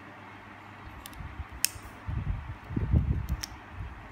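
Hands handling a plastic wristband video recorder: a few sharp clicks as its module is pressed, the loudest about one and a half seconds in, and muffled low handling thumps around two to three seconds in, over a steady background hum.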